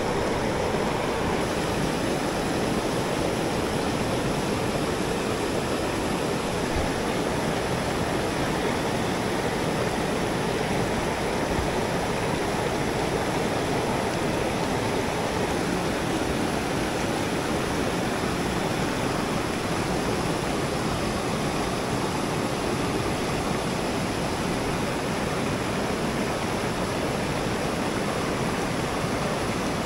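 Steady, unbroken rush of a mountain headwater stream, running high after heavy rain.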